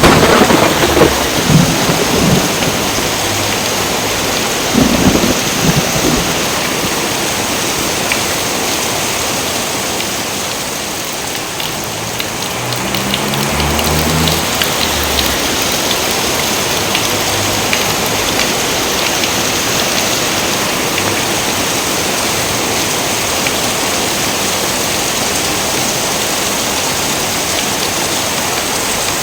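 Steady heavy rain pouring, with low rolls of thunder in the first few seconds, again about five seconds in, and once more around thirteen to fifteen seconds in.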